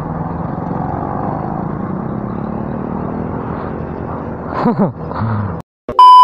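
Motorcycle engine running and tyre and road noise while riding, steady for about five seconds, with a brief voice-like sound near the end. The sound then cuts out for a moment and a loud steady test-tone beep comes in with the colour-bars transition.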